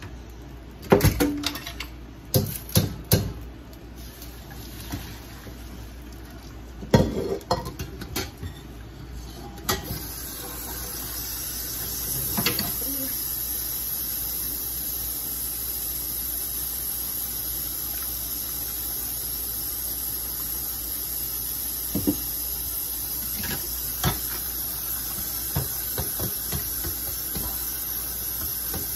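Metal cooking pots and utensils clanking and knocking several times, then from about ten seconds in a steady hiss that holds, with a few light knocks over it.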